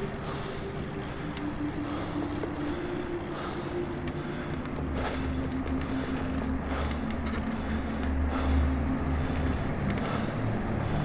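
Wind rushing over the microphone and road noise from a bicycle ride along a paved road, with a low rumble that swells through the middle. A faint hum underneath drops in pitch in a few steps.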